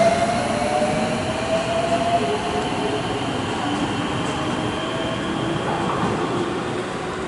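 JR West 207-series electric commuter train pulling away, its traction motors giving a slowly rising whine over the rumble of the wheels as it gathers speed. The sound fades a little as the train moves off.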